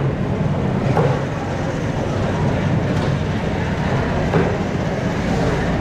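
A large knife chopping into a whole skipjack tuna on a wooden block, a few separate sharp chops, over a steady low mechanical rumble.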